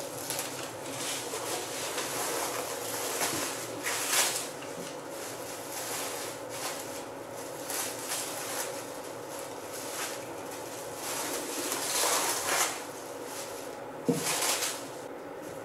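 Plastic cling film crinkling and rustling as hands lift and smooth it over a rolled-out sheet of pastry dough, in a series of short, irregular bursts.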